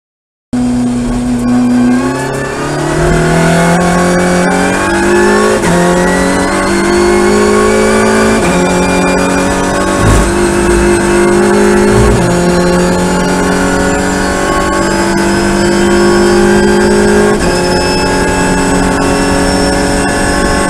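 Audi RS3 LMS TCR race car's turbocharged four-cylinder engine at full throttle, heard from inside the cockpit, pulling up through the gears. The pitch climbs steadily and drops sharply at each of about five upshifts.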